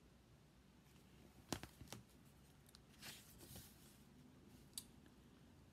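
Faint handling of a paper picture book: two soft clicks about a second and a half in, a brief paper rustle around three seconds in, and one more click near the end.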